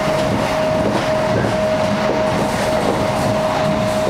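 Inside the carriage of a Chinese D-series high-speed train running along the line: a steady rush of wheel and track noise, with a constant whine held at one pitch and faint scattered knocks.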